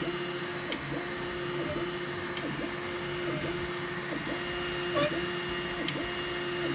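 Elegoo Neptune 4 Pro 3D printer running, a steady motor whine that dips briefly about once a second, with a few short sharp ticks; the printer has developed a squeak.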